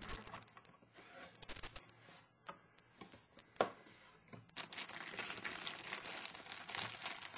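Cardboard packaging handled with faint rustles and a sharp tap, then a clear plastic sleeve holding an installation CD crinkling continuously from about halfway through as it is handled.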